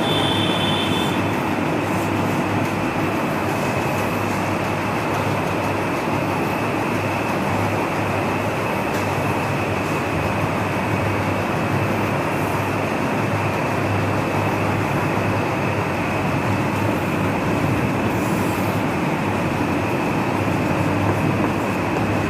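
Steady, even mechanical rushing noise with a low hum underneath, unchanging throughout.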